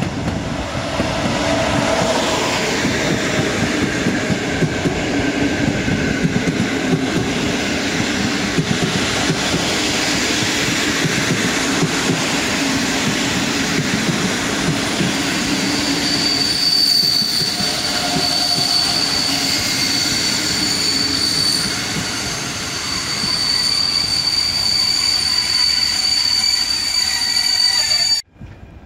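EU160 electric locomotive (Newag Griffin) and its train of passenger coaches passing close on the near track: a loud, steady rumble and clatter of wheels on the rails. From about halfway in, a steady high-pitched squeal rides over it, and the sound cuts off suddenly just before the end.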